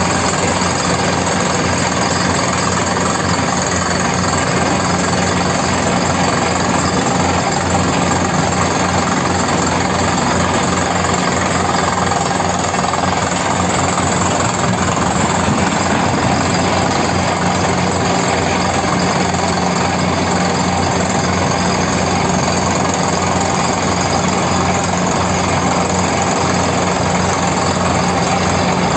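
Heavy diesel engine of large mining machinery running steadily, a constant drone that does not change in pitch or level.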